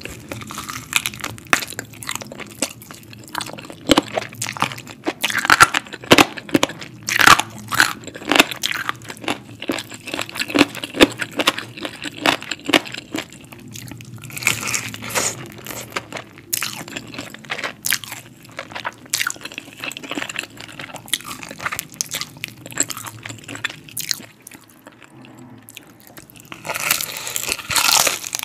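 Biting and chewing crispy spice-breaded fried chicken. The breading crunches in many sharp snaps that come in denser clusters every several seconds, with quieter chewing between them.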